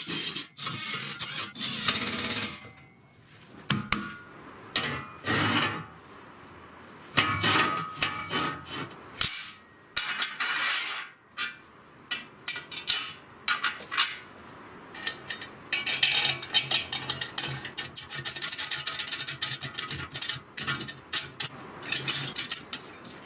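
A cordless driver running a screw into a steel table top, then a series of metal-on-metal clinks, knocks and scrapes as steel parts and a square-tube fence are handled and fitted.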